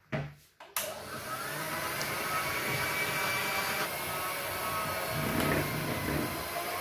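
Two short knocks, then an electric Philips hand mixer switches on just under a second in and runs steadily, its beaters whipping cream in a plastic bowl.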